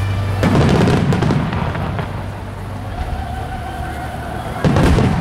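Star mine fireworks: aerial shells bursting in quick succession with booms and crackle. The bursts thin out in the middle, then a loud new volley breaks near the end.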